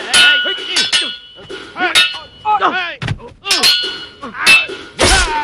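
Swords clashing in a fight: a rapid run of sharp metal clangs, a dozen or so, many of them ringing on briefly, with shouts in between.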